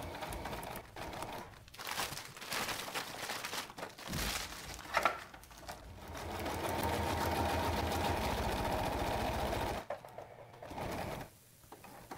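Inexpensive domestic electric sewing machine stitching a hem through cuben fiber, first in short stop-start runs, then one steady run of about four seconds that stops about ten seconds in.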